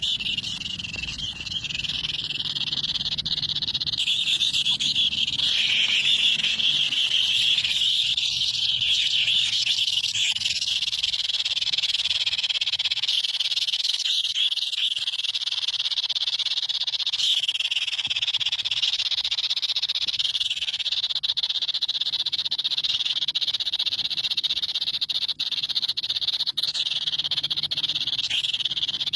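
A dense, steady chorus of high-pitched animal calls.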